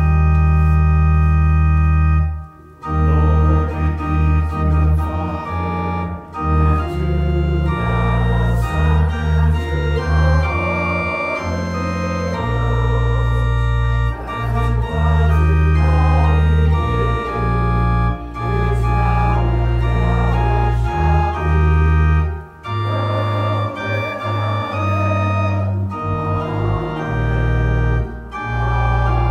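Church organ playing loud, sustained chords over deep bass notes, the chords changing every second or two. It breaks off briefly between phrases, about two and a half seconds in and again about twenty-two seconds in.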